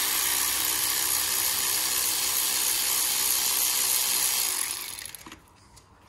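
Cordless power tool running steadily as it spins out a bolt on the engine's timing belt cover, winding down about five seconds in.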